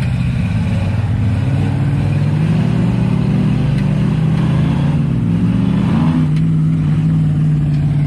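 An off-road vehicle's engine running and revving; its pitch rises about two seconds in and dips briefly around six seconds in.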